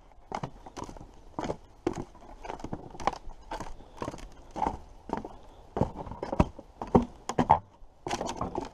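Footsteps of a person walking on a wooden boardwalk: steady knocks at an even pace of about two steps a second.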